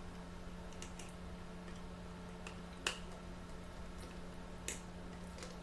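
Quiet eating sounds close to the microphone: a few short, sharp clicks, the loudest about three seconds in, over a steady low hum.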